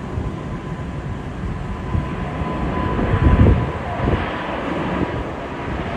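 Airbus A380 taking off under takeoff thrust: a steady jet roar with a deep rumble, swelling louder about three seconds in as the airliner lifts off.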